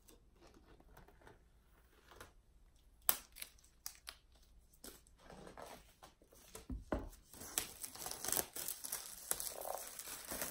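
Clear plastic shrink-wrap being torn open at its pull tab and peeled off a boxed iPad, crinkling and tearing. Faint scratching at first, a sharp snap about three seconds in, then dense crinkling from about seven seconds on.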